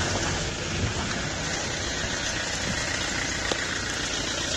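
Jeep driving through a shallow, rocky stream: a steady rush of splashing water over the low rumble of its engine.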